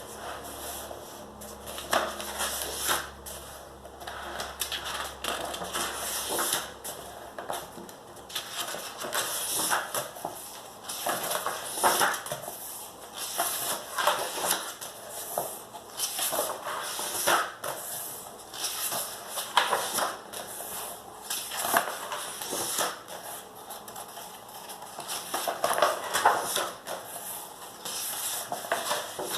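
Colouring on magazine paper: a colouring tool scratching across the page in short repeated strokes, coming irregularly about once a second.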